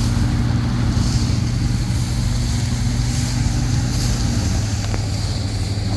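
Combine harvester engine running steadily under load, a constant low hum with no let-up.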